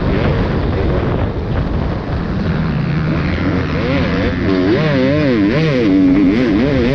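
250-class motocross bike engine being ridden hard, heard from an onboard camera, over a steady rush of noise. Its pitch climbs and drops quickly and repeatedly in the second half as the throttle is worked.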